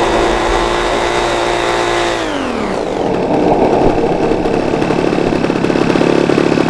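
Small radio-controlled model airplane engine running at a steady high pitch, then throttled back about two seconds in, its pitch falling to a lower, rougher idle.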